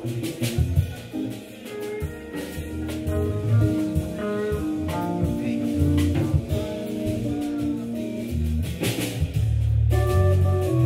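Jazz quartet playing live: electric guitar over organ and drum kit, at a slow ballad tempo.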